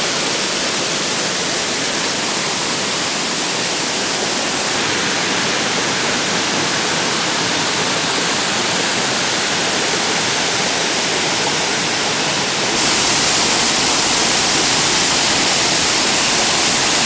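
Waterfall rushing: a loud, steady roar of falling water with no break, which grows louder and brighter about two-thirds of the way through.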